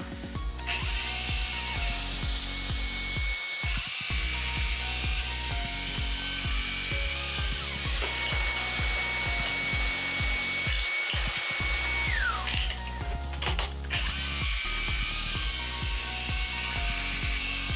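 Festool Domino joiner running and plunge-cutting mortises into oak: a steady high motor whine over a rattling, hissing cutting noise. About twelve seconds in the motor winds down with a falling whine, and after a short pause it starts up again. Background music underneath.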